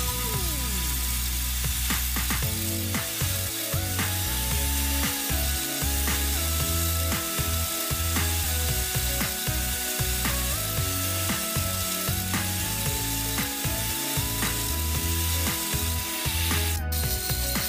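Angle grinder with an abrasive disc grinding rust off a steel hatchet head clamped in a vise. The motor whine rises and falls in pitch over a rough, continuous grinding rasp.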